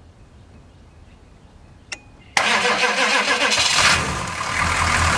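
1985 GMC's 6.2 diesel V8 starting on a portable jump starter, its own batteries dead and its glow plugs already run. After a quiet spell and a click, the starter cranks it suddenly about two and a half seconds in; the engine catches within about a second and a half and settles into a steady idle.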